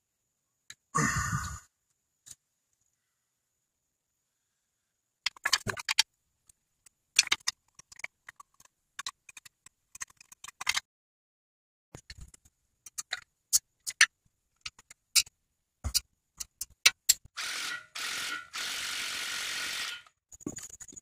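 Scattered clicks and knocks of hand tools and parts being handled, then near the end a Milwaukee M12 Fuel cordless power tool running in two steady spells of a second or two, driving a bolt at the wheel hub.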